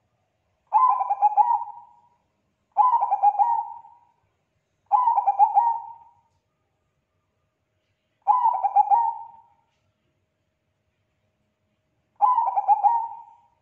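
Bangkok-strain zebra dove (perkutut) cooing: five phrases, each a run of quick stuttering notes that fades out after about a second and a half, with pauses of a few seconds between them.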